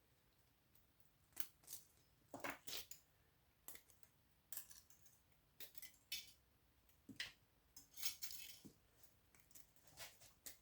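Faint, scattered clicks and clinks of pliers and small metal and ferrite pieces being handled as the copper winding is pulled off a small power-supply transformer.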